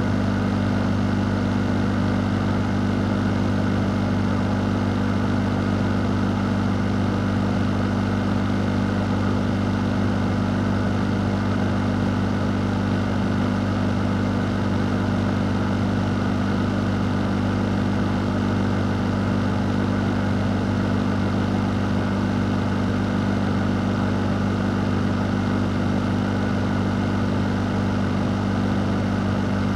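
A fan running steadily: an even rush of air over a low, constant hum.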